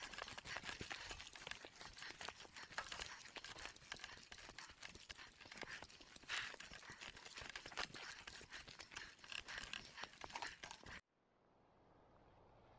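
Dense, irregular crunching and crackling of dry leaves, twigs and icy gravel under an electric mountain bike's knobby tyres as it moves slowly along a frozen trail. The sound cuts off suddenly about eleven seconds in, leaving only a faint outdoor background.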